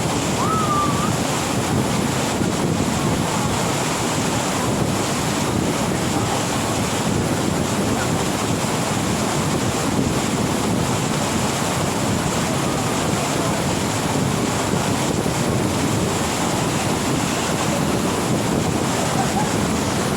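Mountain waterfall rushing: a steady, unbroken noise of falling water.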